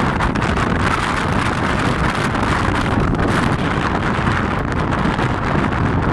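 Strong wind buffeting the microphone: a loud, steady, gusting rumble and rush with no clear pitched engine note.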